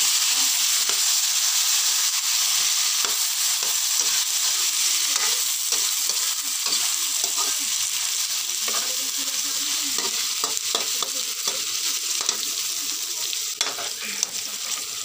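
Pre-fried chicken pieces sizzling in hot oil with onion and garlic in a wok as they are sautéed, with a spatula scraping and clicking against the pan again and again as it stirs.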